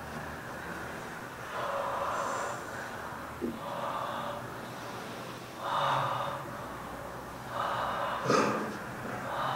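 People in a standing crowd breathing out heavily and gasping: four breathy exhalations in turn, each lasting up to about a second.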